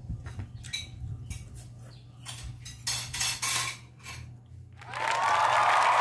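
Scattered light clinks and rubbing of fingers and hands on an amber glass plate as crumbs are picked off it and the plate is lifted. About five seconds in, much louder music starts.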